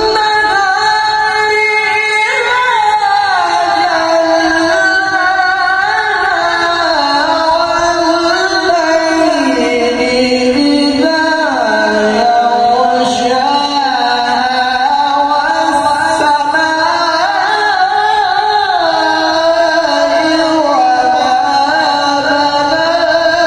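A man reciting the Quran in the melodic, ornamented mujawwad style, amplified through a microphone and PA speaker: one long, unbroken phrase of held and gliding notes.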